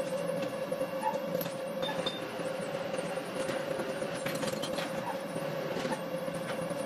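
Industrial metalworking machinery running steadily: a constant hum over an even mechanical noise, with a few light metallic clicks.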